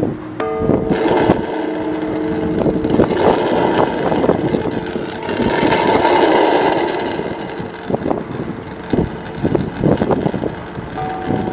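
Large bronze Time and Tide Bell struck repeatedly with a hand-held mallet, several sharp strikes each leaving overlapping tones ringing on. A rushing noise swells through the middle and is the loudest part.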